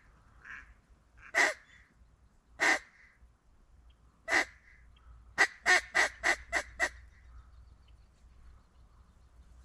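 Loud mallard-hen quacks: three single quacks a second or so apart, then a quick run of six that fade toward the end, in the pattern of a hen mallard's descending call.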